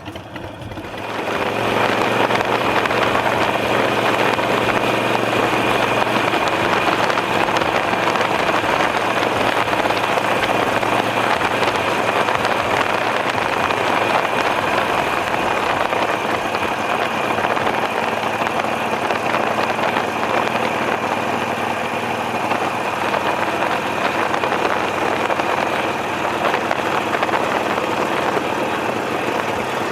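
Motorcycle engine running with a steady rush of wind noise over the microphone, the sound building up over the first second or two and then holding steady.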